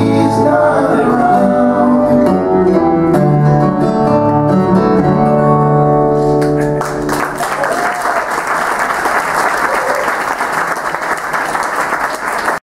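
A band of acoustic guitars and voices ends a song on a long held final chord, then audience applause takes over about seven seconds in and cuts off suddenly at the end.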